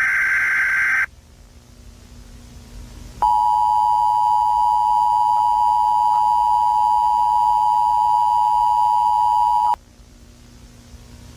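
Emergency Alert System broadcast tones. First comes the end of a SAME digital header, a buzzing data burst lasting about a second. After a two-second pause, the two-tone EAS attention signal sounds as one steady dual-pitched tone for about six and a half seconds, then cuts off suddenly.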